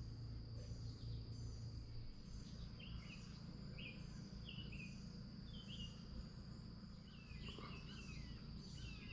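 Outdoor insect chorus: a steady high-pitched trill with short chirps repeating about twice a second. Birds call with short, falling notes, more of them in the last couple of seconds, over a faint low rumble.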